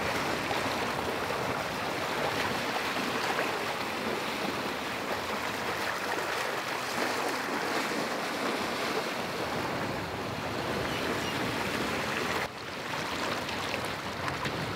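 Water rushing and splashing past the stern of a moving sailboat, a steady wash of wake noise. It dips abruptly about twelve and a half seconds in, then carries on.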